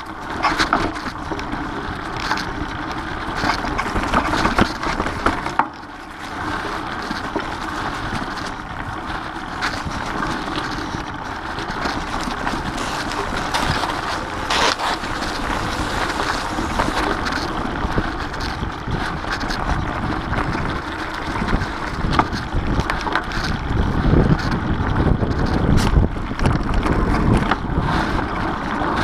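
Mountain bike ridden along a dirt singletrack: tyres rolling over dirt and fallen leaves, with frequent knocks and rattles from the bike over bumps. Wind buffets the camera microphone, gusting stronger in the last several seconds.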